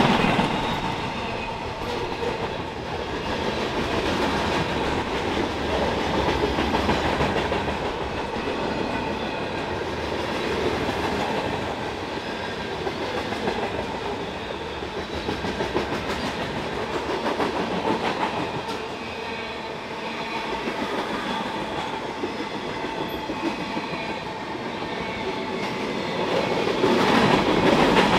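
Freight train of boxcars and tank cars rolling past at speed: a continuous noise of steel wheels on rails that swells and eases as the cars go by, with faint steady ringing tones above it.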